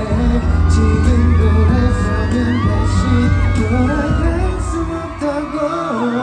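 A male pop singer performing a song live over a band, with bass and drum hits, heard through a large hall's sound system.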